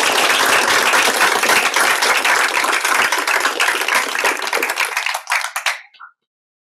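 Audience applauding at the end of a talk, a dense patter of many hands clapping that thins out and stops about six seconds in.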